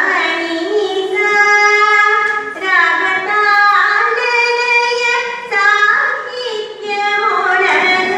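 A high voice singing a slow melody with long held notes that slide from one pitch to the next, broken by short pauses between phrases.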